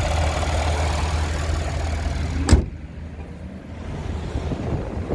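3.6-litre V6 of a 2019 Cadillac XT5 idling with a steady low hum. About two and a half seconds in there is a single loud slam, after which the engine sound drops away.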